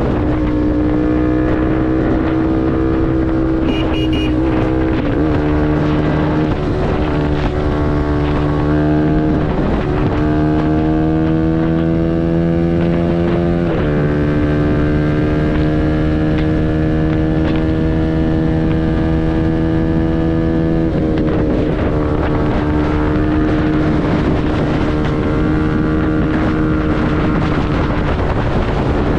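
CFMoto 250NK's single-cylinder engine running through a full Akrapovič exhaust while riding at steady, fairly high revs. The pitch dips and recovers a few times with gear changes, and settles lower after one shift about halfway through.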